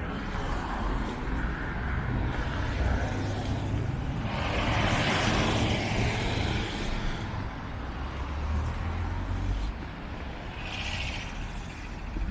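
City road traffic: a steady low rumble of engines, with a vehicle passing close about four to seven seconds in and a short hiss near the end.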